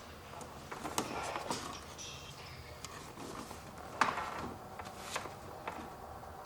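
Light clicks and knocks of plastic trim being handled as a Porsche Boxster's headlight switch panel is worked loose from the dashboard, a few sharp taps spread out, the strongest about four seconds in.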